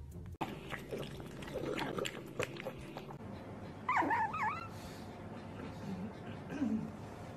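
Pug puppy whimpering in its sleep: two short, high squeaks that dip and rise in pitch about four seconds in, then a couple of soft low grunts.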